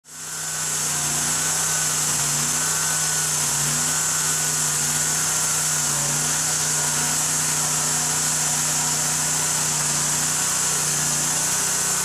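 Band sawmill cutting through a log. The engine runs steadily under load and the blade hisses through the wood. The sound fades in over the first second, then holds even.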